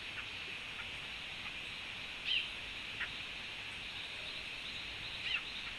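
Two short bird calls about three seconds apart, over a steady high-pitched background hiss of outdoor ambience, with a few faint ticks.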